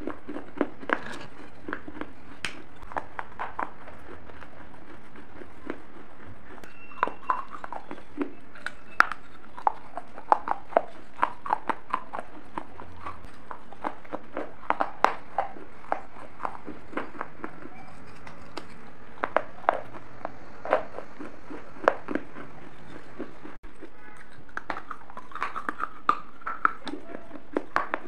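Close-miked crunching as hard, brittle pieces of a gullak are bitten and chewed: sharp, irregular cracks and crunches, several a second at times, over a steady hiss.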